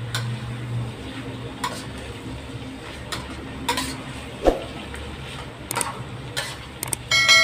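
Metal spatula scraping and clinking against a steel wok while pork intestines are stir-fried, one scrape or knock every second or so over a steady low hum. Near the end a bell-like ding starts and rings on.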